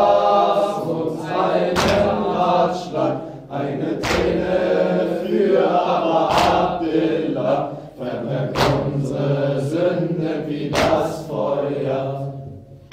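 Voices chanting a latmiya, a Shia mourning chant, in chorus, with a sharp chest-beating slap about every two seconds that keeps the rhythm.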